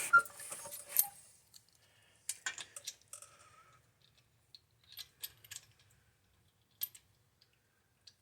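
Scattered light metallic clinks and taps, in small clusters, from lug nuts and wheel hardware being handled as the nuts are tried on the wheel studs of a Cragar SS wheel that barely lines up.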